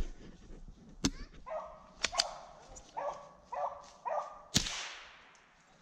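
Dogs barking about four times, then a single loud gunshot near the end that echoes and fades away through the woods.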